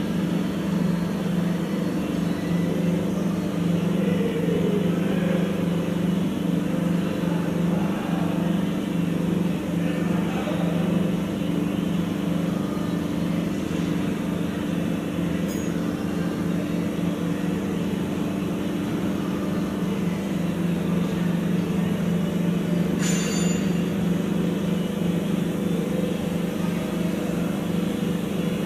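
Steady mechanical drone holding one pitch, with a sharp click about 23 seconds in.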